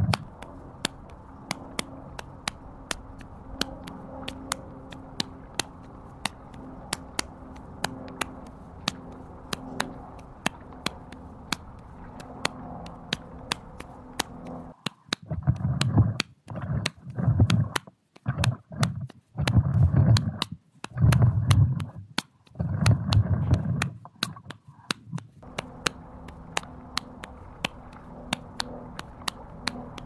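A wide landscape rake dragged over mud and through shallow floodwater, with sharp clicks about two a second throughout. About halfway through come several heavy, low sloshing surges as the rake head is pushed through the water.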